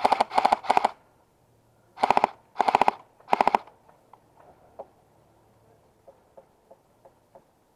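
Airsoft rifle firing short bursts of automatic fire, each a quick run of rapid clacking shots: three bursts in the first second, then three more between about two and three and a half seconds in. A few faint single clicks follow.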